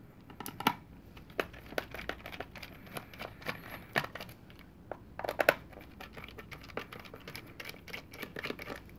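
Small precision screwdriver turning screws out of a plastic lamp base: irregular small clicks and scratching of the bit in the screw heads, with a louder cluster of clicks about five seconds in.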